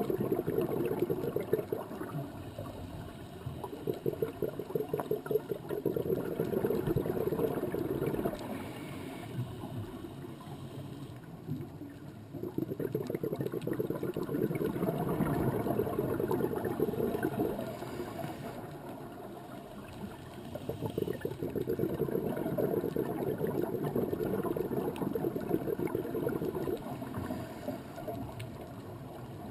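Underwater bubbling and gurgling, typical of a scuba diver's exhaled bubbles. It comes in long surges of three to five seconds, about every seven to eight seconds, with quieter breaks between.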